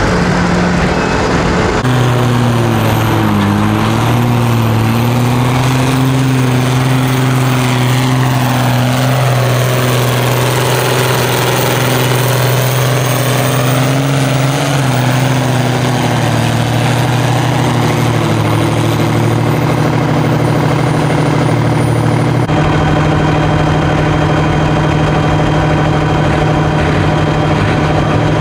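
Vintage tractor diesel engines running hard under load while dragging a tractor-pulling weight sled, a loud steady engine note whose pitch wavers slightly. The tone sweeps through the middle as a tractor passes close by, and the engine sound changes abruptly about two seconds in and again near the end.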